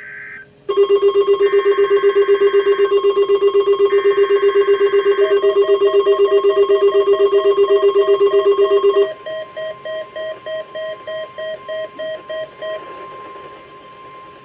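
Weather radio alert receivers going off for a NOAA Weather Radio Required Weekly Test. A loud, rapidly pulsing alarm tone starts about a second in and stops about nine seconds in, while two more warbling bursts of SAME header data play under it. A second, quieter alarm beeps about three times a second until near the end, over a faint steady tone.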